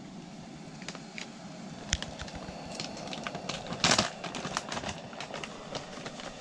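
A backpacking canister stove burning with a steady hiss under a kettle, with food packets crinkling and spoons clicking against bowls; the loudest crinkle comes about four seconds in.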